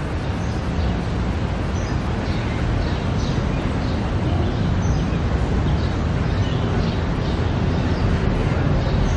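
Outdoor ambience: a steady low rumble with short high chirps scattered through it, about one every second.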